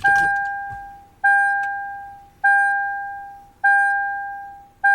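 Lexus GX470's dashboard warning chime dinging steadily, about one ding every 1.2 seconds, each a clear bell-like tone that fades out: the ignition has just been switched back on.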